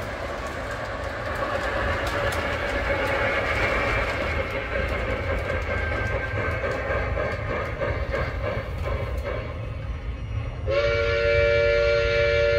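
Lionel O-gauge model steam train rolling along the track with a steady rumble of wheels and motor. About three-quarters of the way in, the locomotive's sound system blows a long steady steam whistle of several tones sounding together.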